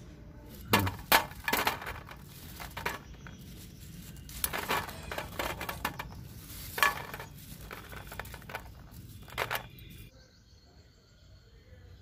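Metal tongs and stainless steel plates clinking and scraping as pieces are picked up and moved between the plates: a scattering of sharp clinks, the loudest about a second in.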